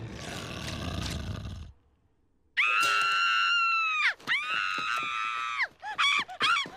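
A cartoon boy screaming in terror: long, high-pitched held screams that each break off with a falling pitch, then a quick run of short wavering yelps before another long scream. Before the screams, a dense noisy sound cuts off just under two seconds in, followed by a brief moment of near silence.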